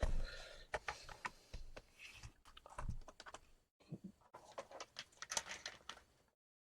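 Irregular light plastic clicks and taps from handling a Dell Latitude 3190 laptop, like keys and case parts being pressed.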